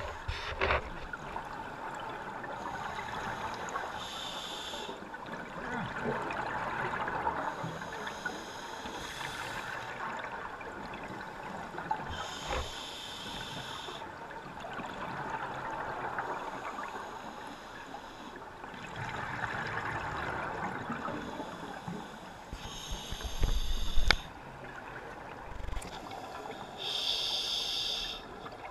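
Scuba regulator breathing heard underwater: a steady hiss and gurgle, with a short bubbling burst of exhaled air every few seconds.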